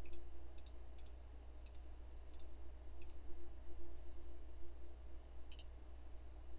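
Computer mouse button clicking about six times in the first three seconds, at roughly one to two clicks a second, then once more near the end, over a faint steady hum.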